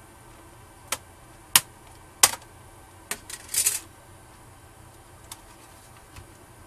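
Sharp clicks of hands working a laptop's memory module and its spring latches as the RAM is released from its slot: four loud separate clicks about a second apart, then a short rattling run of clicks, then a couple of faint ticks.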